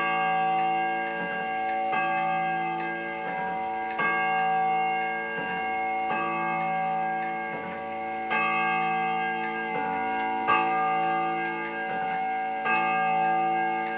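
German Black Forest eight-day spring-driven wall clock striking twelve with its bim-bam chime: a gong strike about every two seconds, each ringing on until the next, with the pendulum ticking underneath.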